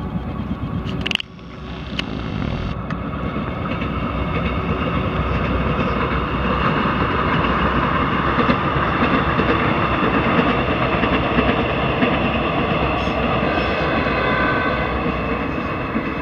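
Multiple-unit passenger train running past on the track, a steady rumble of wheels on rails with clickety-clack and several held machine tones, growing louder toward the middle and easing slightly near the end. A brief sudden break in the sound about a second in.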